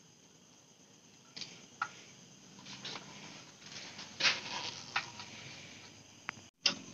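Scattered light clicks and knocks of hands working on a motorcycle's exhaust silencer and its mounting parts, starting about a second and a half in.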